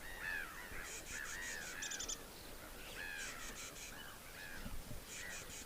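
Many birds calling together: short arched calls overlapping throughout, with quick runs of four or five high, sharp notes about every two seconds.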